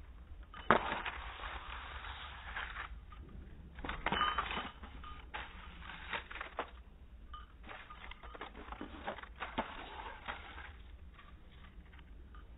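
A strip of brown paper rustling and crackling in irregular bursts as it is waved about and swatted by a cat's paws. A sharp click about a second in is the loudest moment.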